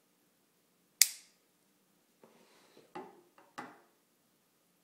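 Unboxing handling noise: a single sharp click about a second in, then a faint rustle and a few soft knocks as the iPad 2's white cardboard box is picked up and handled.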